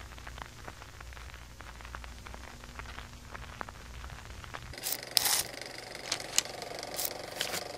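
Faint crackle with scattered clicks and pops over a low steady hum, in the manner of old film surface noise. The pops grow louder and more frequent about five seconds in.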